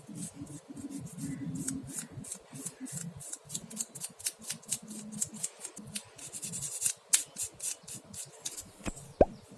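Sandpaper rubbing in quick, short, repeated strokes against a small plastic model-kit part, cleaning it up by hand, with a few sharper ticks near the end.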